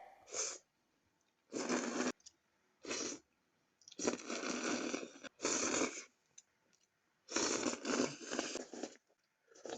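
Close-up eating sounds: a series of short, noisy bursts of chewing and mouth noise, about seven in all, with quiet gaps between.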